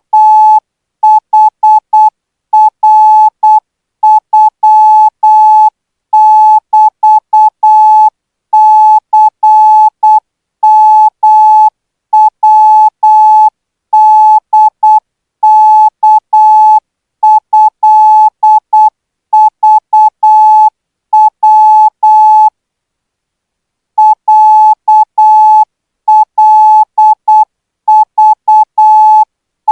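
Morse code practice signal: a single steady beep tone keyed on and off into dots and dashes at 12 words per minute, with one pause of about a second and a half near the end.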